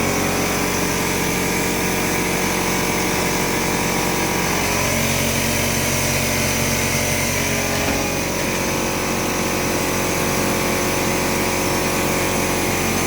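Air compressor running steadily while its compressed air is blown through an AC unit's coils for a final air rinse, a constant motor drone over a loud hiss.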